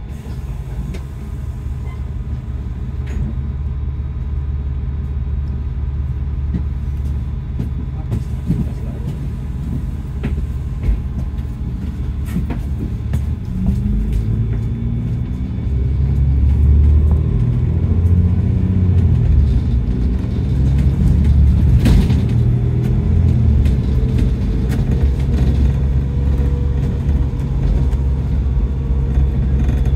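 Bus engine and road noise heard from inside the passenger cabin as a steady low rumble. About halfway through the bus speeds up: a whine rises in pitch in steps and the rumble grows louder.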